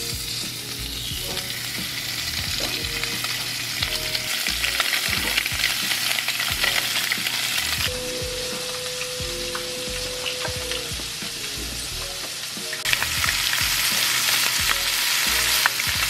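Sheepshead fillets frying in hot olive oil and butter in a nonstick pan: a steady sizzle with small crackles, louder for the last few seconds.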